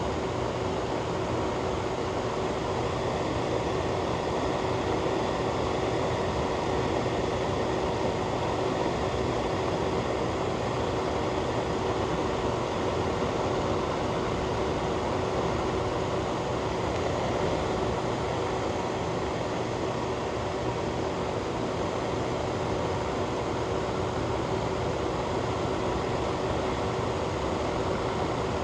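Ventilation fan running steadily: an even rush of air with a faint steady hum through it.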